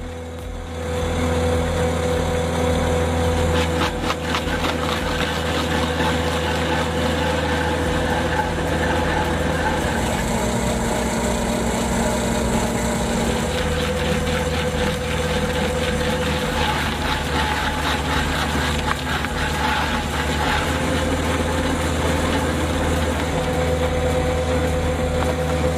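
A heavy engine running steadily, with a dense crackle over it.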